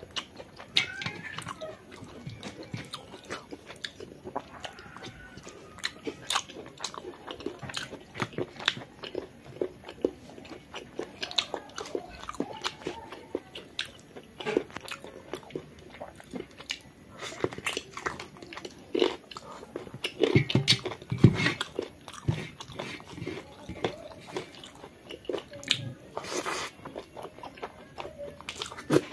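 Close-up chewing and lip smacking of a person eating rice and chicken curry with the fingers: a steady run of short wet smacks and clicks, with a brief louder rush of breath-like noise near the end.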